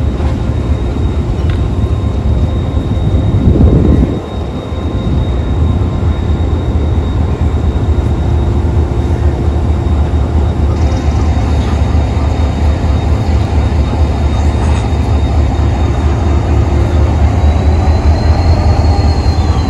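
HGMU-30 diesel-electric locomotive running as it rolls slowly past at close range, a steady low engine rumble with a faint high whine above it. A brief louder surge comes about four seconds in.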